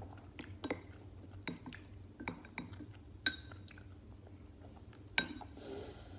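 Utensils clinking against dishes: scattered small clicks and two bright ringing clinks, one about halfway through and one near the end, followed by a brief hiss.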